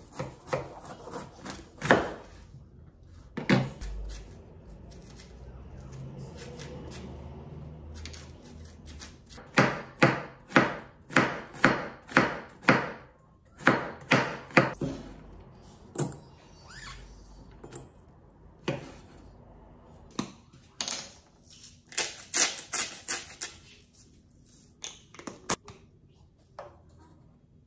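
Kitchen knife slicing a bitter melon on a wooden cutting board: sharp knocks of the blade on the board, several in quick runs of about two a second.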